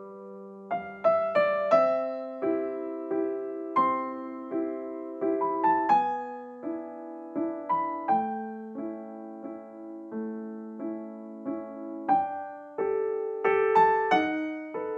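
Soft background music played on piano, a slow melody of struck notes that ring and fade over held low notes.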